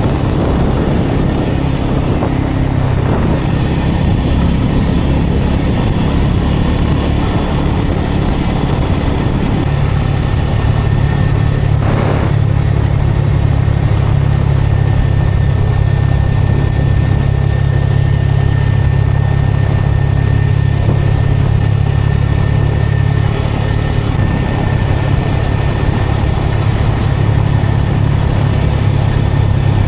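Bajaj Pulsar N250's single-cylinder engine running steadily, its hum shifting slightly about ten seconds in, with one brief sharp noise a couple of seconds later.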